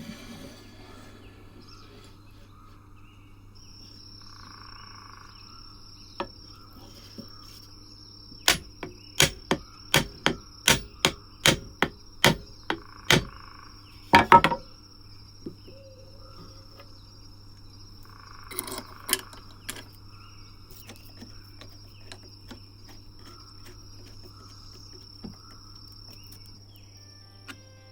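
Hammering: about ten sharp knocks on wood, about two a second, then a quick cluster of hits and a few more knocks later, over a faint steady high whine.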